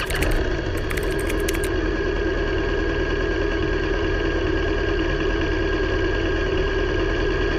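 Vehicle engine idling steadily, with a few sharp clicks in the first two seconds.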